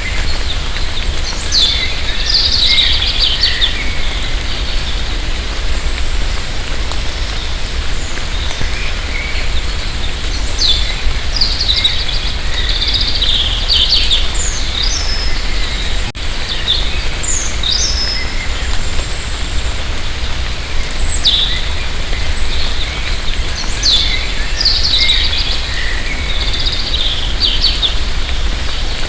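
Light rain falling in a forest as a steady hiss, with a low rumble underneath. Birds call over it every few seconds: quick falling chirps and short bursts of song.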